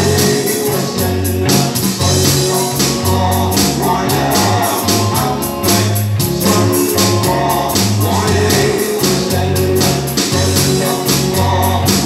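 Live amplified band playing a solawat, a devotional song in praise of the Prophet Muhammad: electric guitars over a steady beat from an electronic drum kit, with sung vocals.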